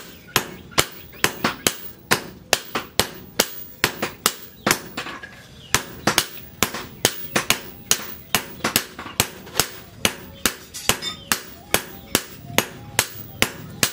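Hand hammer forging a red-hot leaf-spring steel blade on an anvil: a steady run of sharp metallic blows, about three a second.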